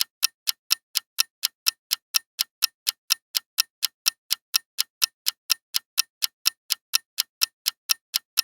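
Quiz countdown timer sound effect: a clock ticking fast and evenly, about four ticks a second.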